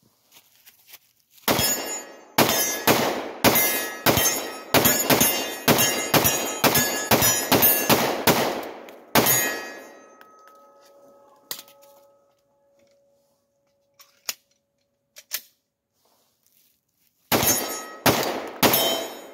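Factory Glock 20 10mm pistol being speed-fired: a fast string of about fifteen shots at roughly two a second, then a faint ringing tone that fades over a couple of seconds, and a second quick string of shots near the end. The pistol cycles every round without jamming.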